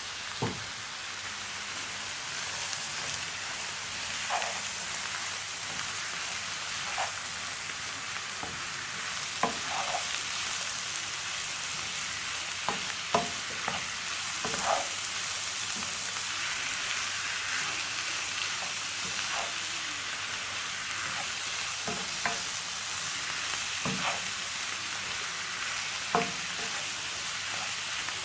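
Diced carrots, sweetcorn and bell peppers sizzling as they fry in a pan, stirred through with their seasoning. A utensil knocks against the pan now and then, about a dozen times.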